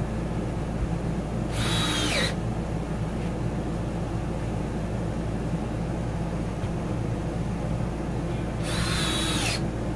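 Cordless drill driving 1-1/4 inch screws through two floor boards: two short bursts of the motor whine, about a second in and again near the end, the pitch dipping as each screw bites.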